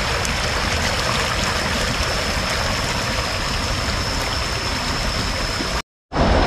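Water of a man-made stream rushing and splashing over rocks in a small cascade, steady, with a thin constant high tone above it. The sound drops out for a moment near the end.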